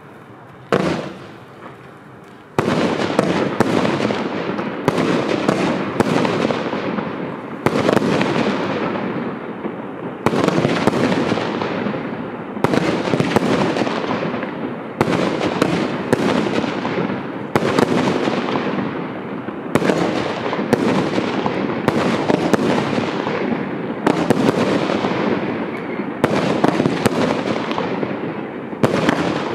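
Two Hoops Pyrotechnik "Leos Beautiful Night" category F3 firework batteries fired side by side, launching shots that rise with gold tails. There is a single crack just under a second in. Then, from about two and a half seconds, a sharp shot comes about every two and a half seconds, each trailing off into a fading hiss that runs into the next.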